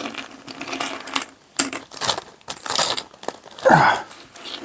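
Small game tokens clicking and clattering together as they are handled and gathered up, with a short falling squeak near the end.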